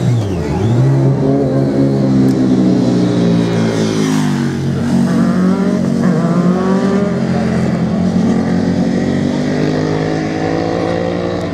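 Several motorcycles riding along the course one after another, engine notes dipping and climbing again as they accelerate, once near the start and again about four seconds in.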